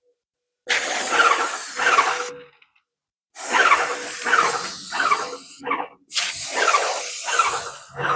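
Airless paint sprayer spraying in three bursts of hiss with short gaps between trigger pulls. The tip keeps clogging.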